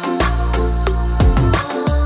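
Background music with a steady beat: deep held bass notes under punchy drum hits and sustained synth notes.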